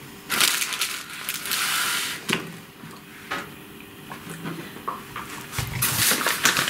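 Rustling and crinkling of food packaging: the puff pastry's backing sheet is handled for a second or two, then come a couple of light knocks on the chopping board, and the flour bag rustles near the end.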